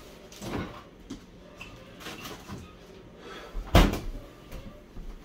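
Quiet kitchen handling noises, then one loud, sharp knock about two-thirds of the way through.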